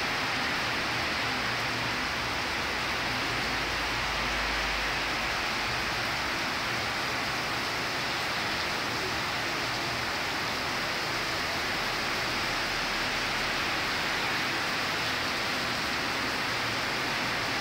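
Heavy tropical downpour: a steady, even hiss of rain falling in torrents.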